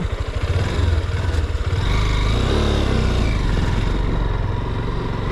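Honda CB motorcycle engine running on the move, a low rapid thrum that picks up and steadies about a second and a half in as the bike accelerates.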